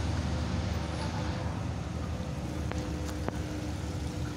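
Road traffic of trucks and cars with engines running as a low, steady rumble, a faint steady hum underneath. Two sharp clicks come about half a second apart in the middle.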